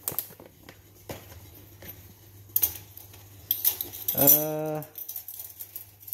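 Rustling and light clicks of a kraft-paper coffee bean bag being handled and put aside. About four seconds in comes a short, steady hummed voice sound.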